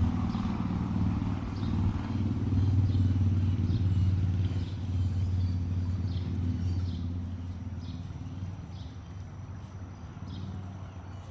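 A motor vehicle's engine hum, low and steady, fading away over the second half as the vehicle moves off. Short high chirps repeat about once a second throughout.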